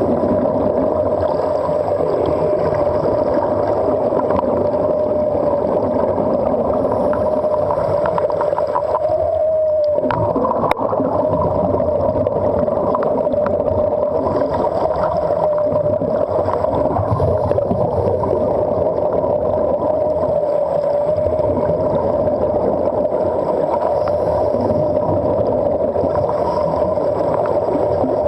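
Underwater recording: a steady droning hum with a slightly wavering pitch over a dense rushing water noise, with one sharp click about ten seconds in.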